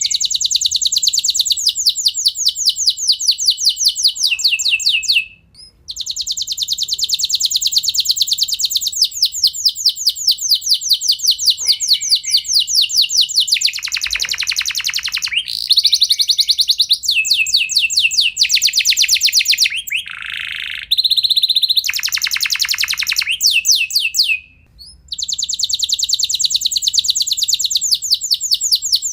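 Domestic canary singing long rolled trills: fast runs of repeated high notes, each run lasting several seconds. A few lower, slower trill phrases come near the middle, and there are brief pauses about five seconds in and near the end.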